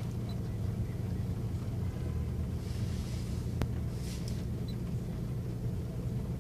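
2014 Infiniti Q50 AWD engine idling steadily after a cold start, a low even hum heard from inside the cabin. A single sharp click sounds about halfway through, with a couple of short rustles around it.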